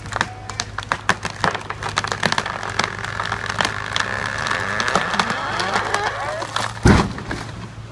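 A large tree trunk section cracking and splintering as it breaks away at the saw cut, with many sharp cracks over several seconds, then one heavy thud near the end as it comes down. A steady low hum runs underneath.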